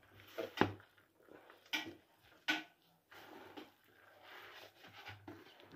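Gloved hands rubbing and squeezing a crumbly bulgur-and-flour kibbeh mixture in a plastic bowl: soft scattered rustling with a few sharper taps in the first three seconds.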